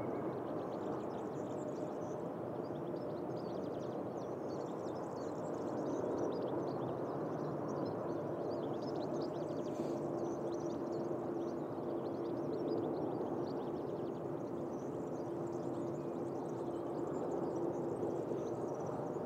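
Distant Boeing 787 airliner's jet engines giving a steady rumble as it lands and rolls out along the runway, with a steady hum in it through the middle stretch.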